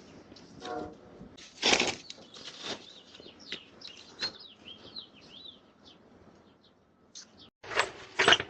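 Small birds chirping in quick, high calls, broken by a few short bursts of noise, the loudest near the end.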